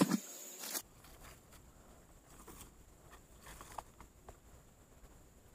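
Quiet outdoor background with a few faint, scattered clicks and rustles, after a brief bit of voice at the very start.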